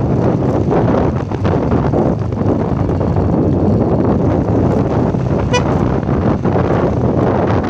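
Wind buffeting the microphone over a motorcycle's running engine while riding, a steady loud rush. About five and a half seconds in comes one short horn beep.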